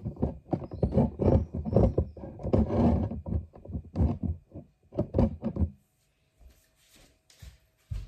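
A search dog sniffing hard close to the microphone: rapid, irregular snuffling bursts for about six seconds, then it goes mostly quiet.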